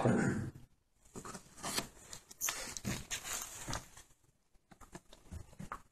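Faint rustling and small clicks of handling noise in a quiet room, strongest in the first half of the pause.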